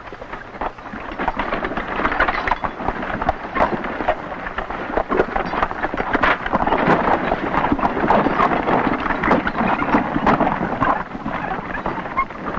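Horse-drawn chuck wagon rumbling and rattling along a rough trail, with many irregular knocks and clatters over a continuous rumble.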